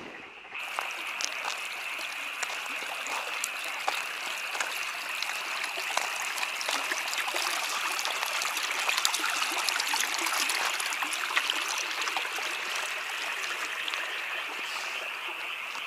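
Steady outdoor night ambience: an even hiss with a continuous high-pitched ringing band and scattered faint clicks, starting abruptly about half a second in.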